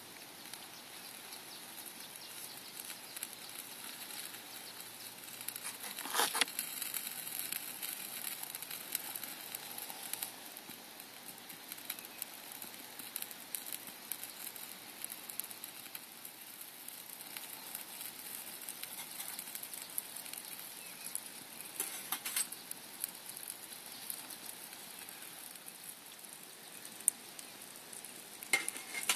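A small backpacking stove burning its fuel, with a steady sizzling hiss and fine crackling, and a few louder knocks: one about six seconds in, one about twenty-two seconds in and one near the end.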